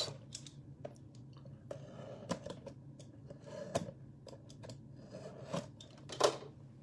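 Hands handling a plastic-wrapped cardboard trading card box: scattered faint clicks, taps and scrapes, with a brief louder rustle near the end, over a low steady room hum.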